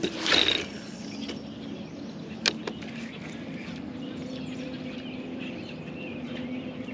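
A fishing rod cast whooshes out just after the start, then the spinning reel is wound in with a steady low hum. One sharp click comes about two and a half seconds in.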